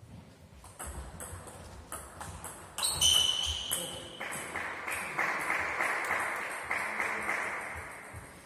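Table tennis ball clicking in a quick series off paddles and table during a rally. A loud sharp sound about three seconds in, with a brief ringing tone, is followed by a few seconds of noise that fades away.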